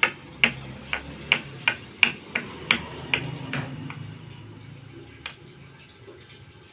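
A run of about ten sharp taps or knocks, roughly three a second, then one more a couple of seconds later, over a low steady hum.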